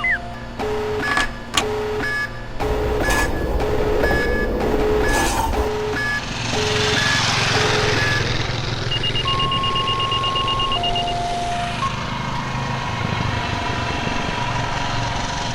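Layered sound effects: a high and a low electronic tone alternating about twice a second, like a hi-lo alarm, over a vehicle-like rumble and hiss. Later this gives way to a few steady held tones.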